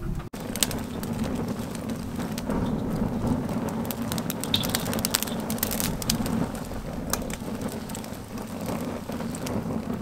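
Charcoal and split oak burning in the base of a drum smoker: irregular crackles and pops over a steady low rumble.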